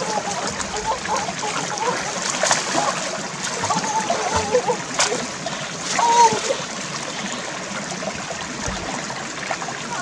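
Shallow rocky stream running, with water splashing and sloshing as a person lunges and grabs with her hands in it, a few sharp slaps among them. Short wavy pitched calls come and go over the water.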